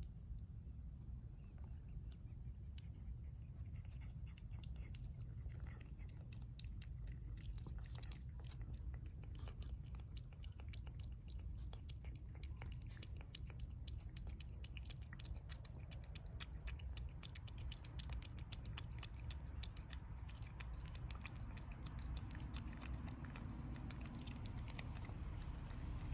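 Cats chewing food: many small, irregular clicks of chewing and biting over a low rumble.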